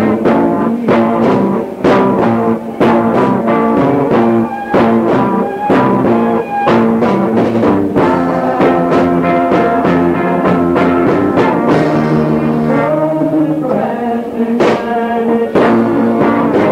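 Rock band playing live: electric guitars, bass and drums with a steady beat, vocals barely audible. A lo-fi cassette recording made down the hall from the stage.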